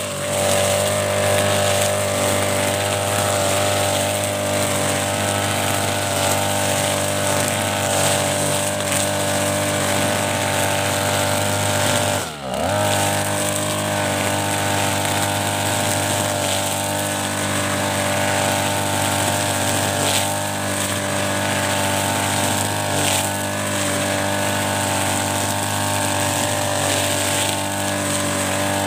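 Backpack brush cutter engine running steadily at cutting speed while the trimmer head mows wet grass. About twelve seconds in the engine briefly drops in speed, then picks up again.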